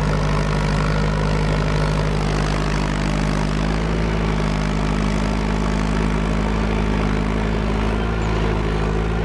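Small farm tractor's engine running steadily under load as it pulls a two-disc plow through sod.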